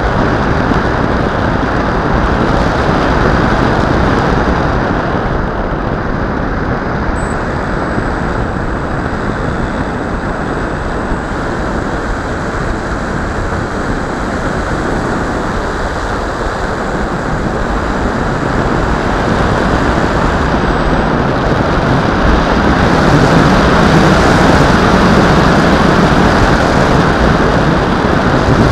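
Steady rushing airflow and the electric motor and propeller of a Bixler RC plane in flight, heard from the plane's onboard camera. It grows louder in the last third.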